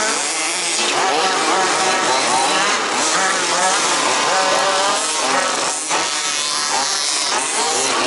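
Several 1/5-scale RC buggies' small two-stroke petrol engines racing, their pitch rising and falling as the drivers go on and off the throttle.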